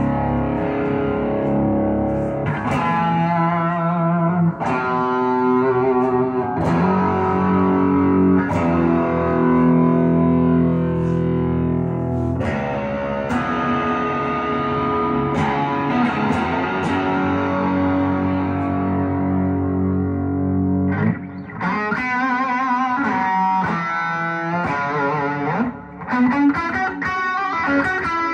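Electric guitar through a Matchless Clubman valve amp head and Matchless 4x10 cabinet, its volume turned way down, driven by a Landgraff MO'D overdrive pedal. Overdriven chords ring out and sustain for about twenty seconds, then give way to quicker single-note runs.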